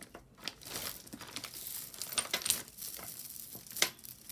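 Jewelry pieces being handled and sorted by hand: rustling with many small clicks and clinks, and one sharper click near the end.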